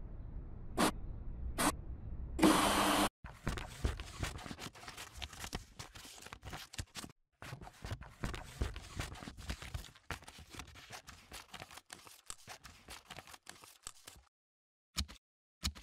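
A printer running as it feeds out a printed sheet, with a short loud whir at about two and a half seconds. Then scissors snip and cut through the paper print in a long run of quick, crackly cuts lasting about eleven seconds, followed by a couple of separate sharp clicks.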